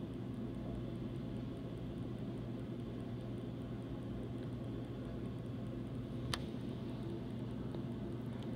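Steady low rumble of distant vehicle noise with a constant low hum, and a single sharp click about six seconds in.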